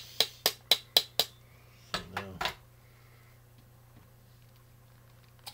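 Metal lid of a glass pickle jar tapped with a knife to loosen it: six sharp taps, about four a second. Near the end a faint click as the stuck lid gives way.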